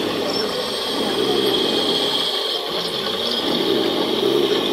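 Small electric motors and gearboxes of radio-controlled construction models running: a dense, rapid ratcheting whir with a steady high whine over it.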